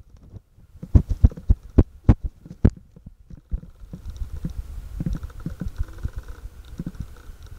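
Dull thumps, two or three a second, of the camera being handled while it is carried on foot, then a low steady rumble with light scratching and clicking as puppies dig in the soil and stones of a garden bed.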